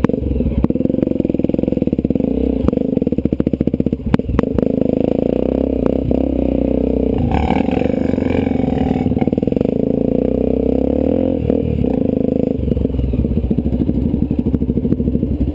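Off-road motorcycle engine running steadily under way, its pitch rising and falling a little with the throttle, with a few sharp knocks and rattles from the bike over rough ground.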